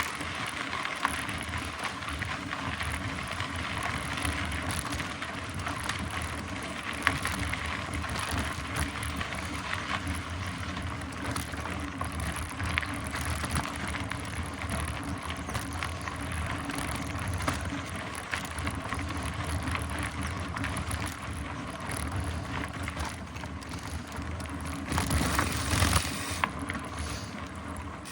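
Mountain bike being ridden over a trail: steady tyre and rolling noise with the bike's chain and frame clicking and rattling over bumps, louder for a moment near the end.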